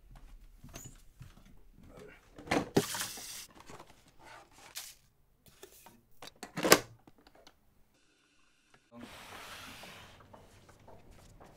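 A string of household handling noises: a burst of rustling about two and a half seconds in, then a single loud sharp clack from a plastic kettle lid shortly after the middle, and a steady hiss near the end.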